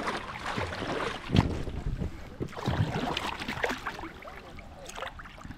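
Water sloshing and splashing close against a camera held at the water's surface, in uneven surges, with some wind noise on the microphone.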